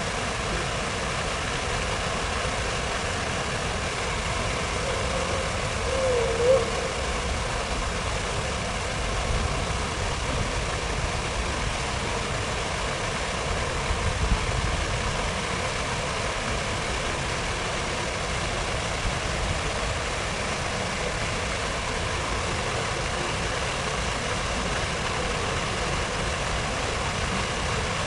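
Steady downtown city-square ambience: an even wash of noise over a low rumble of traffic. A brief wavering pitched sound comes about six seconds in.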